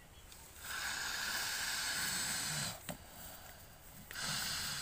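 Water buffalo, head roped tight to a tree trunk, breathing hard: two long, hissing blows, each about two seconds, with a short pause between.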